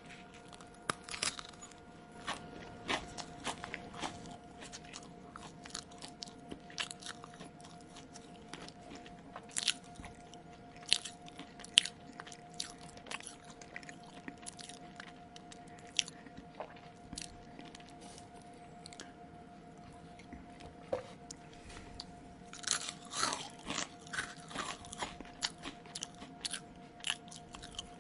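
Close-miked mouth chewing food with irregular sharp crunches and wet mouth clicks, with a denser run of crunches toward the end, over a faint steady hum.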